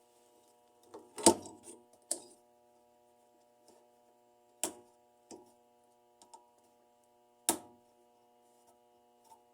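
Scattered sharp clicks and knocks of a washing machine's drive belt and motor pulley being handled while the belt is fitted, about five in all, the loudest about a second in, over a faint steady hum.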